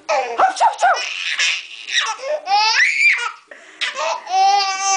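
Baby laughing hysterically in repeated high-pitched bursts and squeals, with a rising squeal about three seconds in and a long held shriek of laughter near the end.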